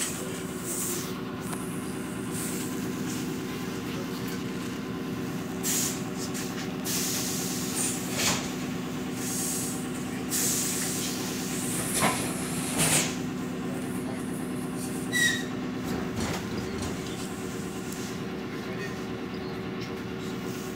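Inside a moving suburban electric train: a steady motor hum over running noise, with a few short knocks and rattles. The lower part of the hum drops out about three quarters of the way through.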